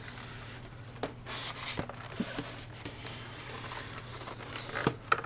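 Cardboard packaging being handled: rustling and scraping with scattered light knocks, a few sharper knocks near the end, over a low steady hum.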